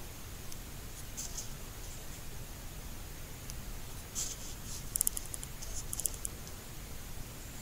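Small sharp clicks of a Pulsar Thermion XP38 thermal scope's controls being worked, a couple a little over a second in, more near four seconds and a quick run of them from about five to six seconds in as the zoom is turned down, over a faint steady low rumble.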